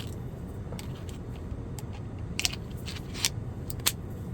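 Scattered sharp clicks from handling a Klein Tools 11-in-1 screwdriver and its bits, several of them in the second half, over a low steady hum.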